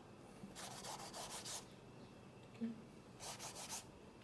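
A sheet of Canson watercolour paper rubbed or handled, giving two faint scratchy rubs, one about a second long starting just after the beginning and a shorter one a little after three seconds.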